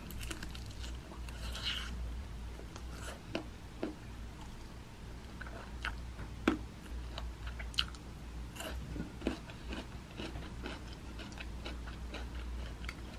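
Close-up chewing and biting of oven-roasted chicken wings, with scattered small crunches, over a low steady hum.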